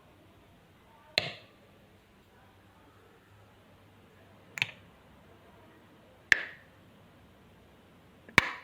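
Four sharp single clicks spaced one to three seconds apart, each dying away quickly: a home-made imitation of an electric switch being flicked on and off.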